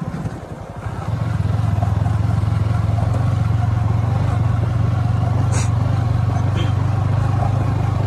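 Motorcycle engine running steadily as the bike is ridden along a bumpy dirt track, heard from the pillion seat; its low drone grows louder about a second in and then holds even.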